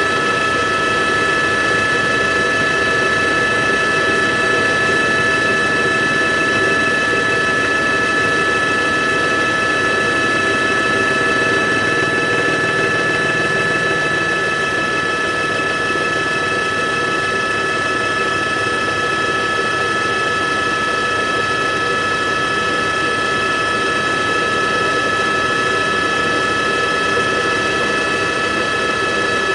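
A helicopter in flight: an even, steady rushing drone with several high whining tones held at a constant pitch.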